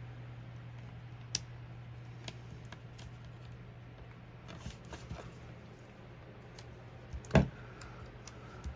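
Scattered light taps and clicks of stickers and paper being handled and pressed onto a planner page, with one louder tap about seven seconds in, over a steady low hum.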